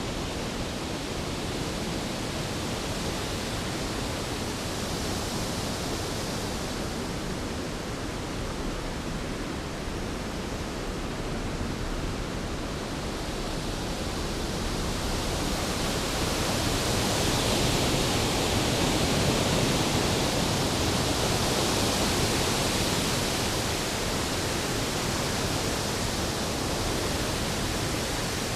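Storm ambience sound effect: a steady rushing noise of rain and wind, swelling louder a little past halfway and easing off again, with no distinct thunderclap.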